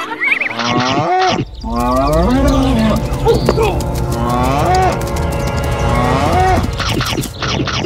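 Cows mooing: a run of long, drawn-out moos, one after another, starting about a second and a half in.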